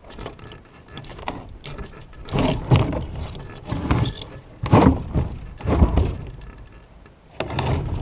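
A heavy log being worked up a ramp into a trailer: about half a dozen heavy thuds and scrapes over several seconds.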